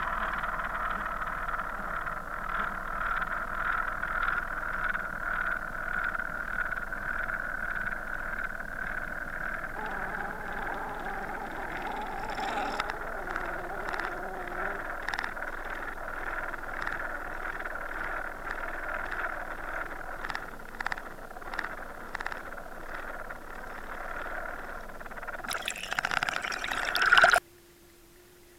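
Underwater sound picked up by a submerged camera: a steady watery hiss with a faint hum and many small clicks and ticks. Near the end it swells into a loud rush, then cuts off suddenly.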